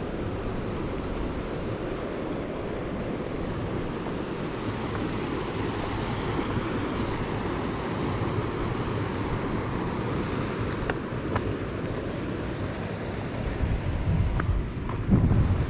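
Wind buffeting the microphone as a steady low rumble, gusting louder near the end.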